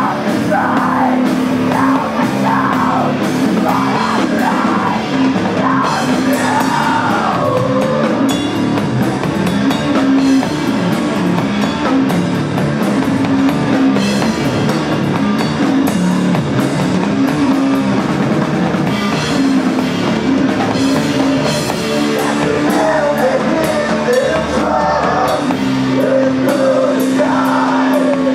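Live rock band playing loud: a drum kit pounding steadily under bass guitar holding low notes, with a woman singing over it for the first several seconds and again near the end.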